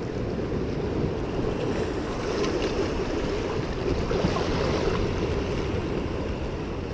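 Small waves washing and breaking over shoreline rocks, a steady surf wash, with some wind buffeting the microphone.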